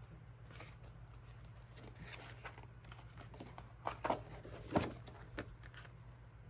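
Desk calendar pages being turned and handled: soft paper rustles and light taps, with a few sharper clicks about four to five seconds in, over a low steady hum.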